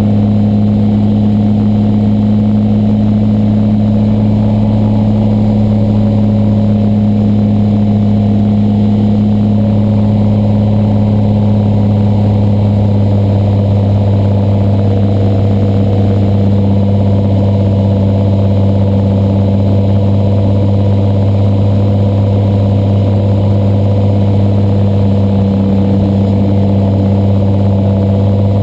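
Slingsby T-67 Firefly light aircraft's piston engine and propeller running steadily in flight, heard from inside the cockpit: a constant deep drone with an even tone above it.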